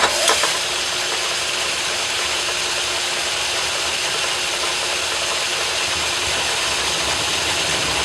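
Metal lathe running steadily while turning down a steel bar, with a steady hum through it; it starts abruptly with a few clicks in the first moment.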